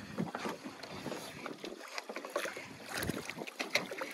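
Water noise and scattered sharp splashes from a hooked permit thrashing at the surface alongside a boat as it is led into a landing net.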